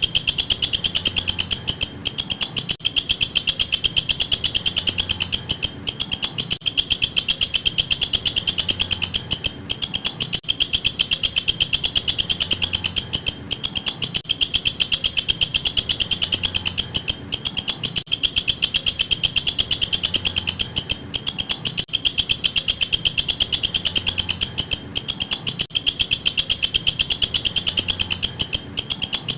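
Walang kecek bush cricket calling: a continuous, very rapid shrill pulsing, broken by brief pauses every second or few.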